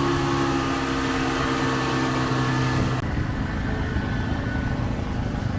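Boat engine running steadily with a constant drone. About three seconds in, the sound changes abruptly to a rougher, duller engine noise.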